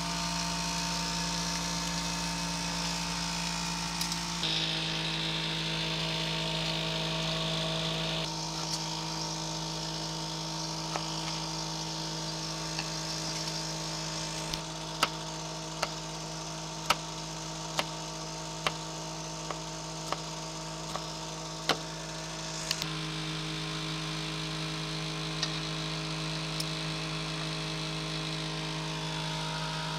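A steady, buzzing motor-like hum over a faint high sizzle of bacon frying in a cast-iron skillet. About halfway through comes a run of sharp clicks, roughly one a second, for several seconds.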